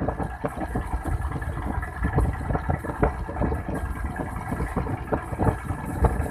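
A boat engine running steadily, with wind buffeting the microphone in irregular gusts.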